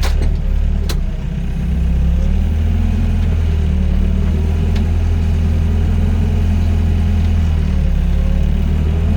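Doosan DX55 mini excavator's diesel engine running steadily, with a few short clicks about a second in and again near the middle.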